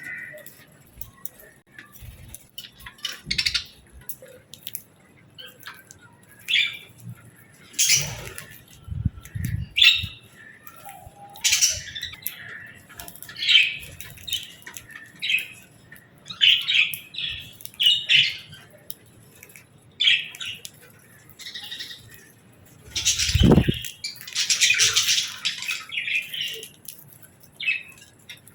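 Pet budgerigars chirping and squawking in short calls. Two louder bursts of wing flutter stand out, about eight seconds in and again later on.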